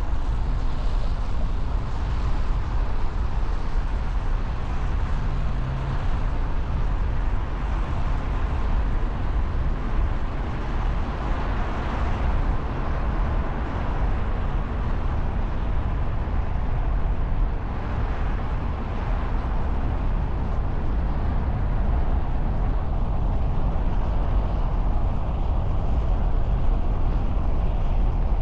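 Steady city road-traffic noise with a strong low rumble.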